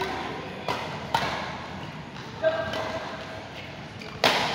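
Badminton rally: racket strings striking a shuttlecock four times in a second-and-a-half-or-so rhythm, each sharp hit ringing briefly in a large hall.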